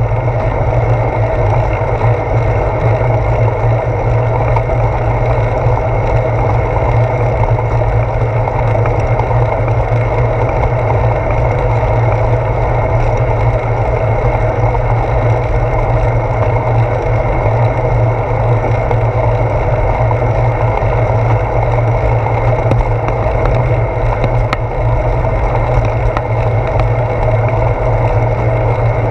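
Steady wind rumble and road noise picked up by a handlebar-mounted GoPro on a bicycle moving along a damp road, with a strong low hum that never breaks.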